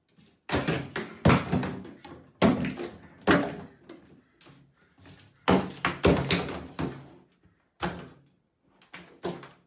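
A series of loud thumps and knocks, irregularly spaced, each starting sharply and dying away quickly.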